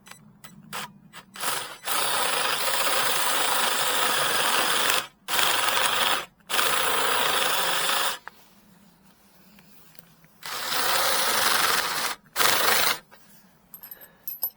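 Cordless drill boring into a wooden post with a 32 mm spade bit, run in a few short blips and then in longer bursts of several seconds with pauses between, cutting a recess to sink a large bolt washer flush.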